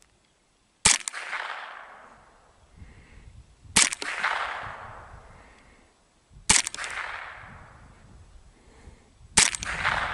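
Four single shots from a semi-automatic Ruger 10/22 .22 rimfire rifle firing .22 Short rounds, spaced about three seconds apart, each crack followed by an echo that fades over a second or two.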